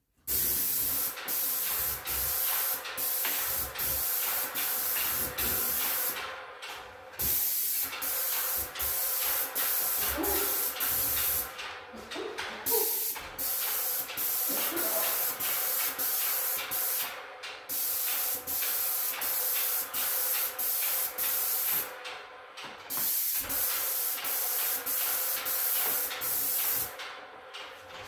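Paint spray gun hissing out paint in quick short bursts, about two a second, as the trigger is pulled again and again, with a few slightly longer pauses between passes.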